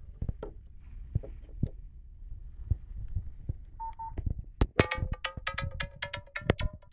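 Nokia 515 mobile phone being handled, with scattered button clicks and a short key beep about four seconds in. About four and a half seconds in, the next ringtone starts from the phone's speaker: a fast, clicking rhythm of about five ticks a second over steady tones.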